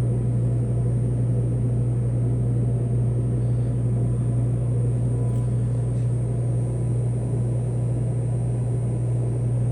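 A loud, steady low mechanical hum that does not change.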